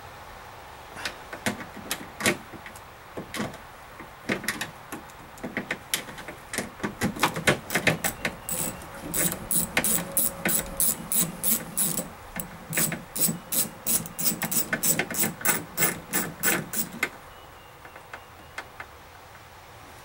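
Ratchet wrench clicking in quick runs, about four clicks a second, as the 8 mm bolts holding a pickup's outside door handle are worked loose. Scattered tool clicks and knocks come before it, and the clicking stops a few seconds before the end.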